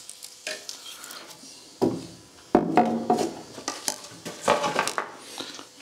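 Old wooden boards knocking and clattering against one another as they are shifted and pulled from a stack; several sharp knocks, the loudest about two and a half seconds in.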